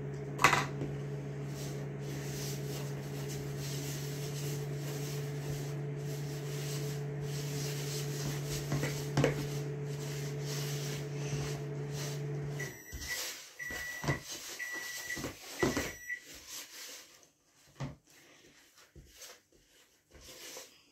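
Microwave oven running with a steady hum while it melts chocolate and butter. It cuts off about 13 seconds in and beeps four times at the end of its cycle. A utensil knocks and scrapes in a plastic mixing bowl as eggs are beaten into the batter.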